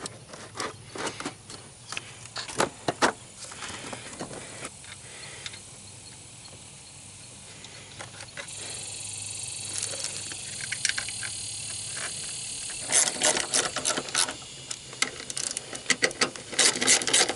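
Plastic fuse box and wiring being handled and pressed back into place: scattered clicks and knocks, a stretch of steady rustling in the middle, then a quick run of clicks near the end.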